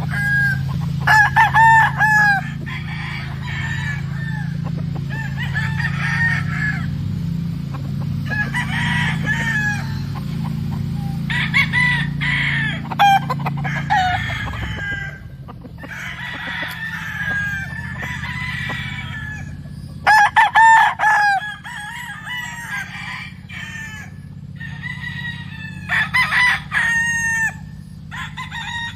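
Roosters crowing again and again, with hens clucking between the crows. A low steady hum runs under the first half and fades out about halfway through.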